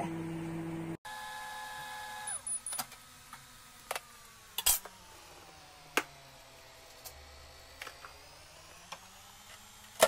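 A running microwave oven hums steadily for about two seconds, then scattered light clicks and knocks follow as a plastic container and lid are handled, ending with a sharper knock at the microwave door.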